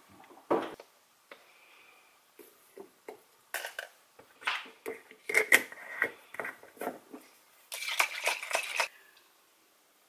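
Glass bottles and jars clinking and knocking on a kitchen counter as a pre-workout drink is mixed, with a loud clink about half a second in and a dense second of clatter near the end.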